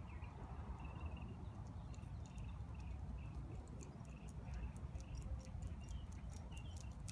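Quiet outdoor ambience: a steady low rumble like wind on the microphone, faint short high chirps in the first couple of seconds, then a run of light quick clicks from about two seconds in.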